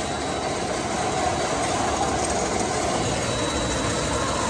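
Steel Vengeance hybrid roller coaster (steel track on a wooden structure), its train running on the track with a steady, dense mechanical noise.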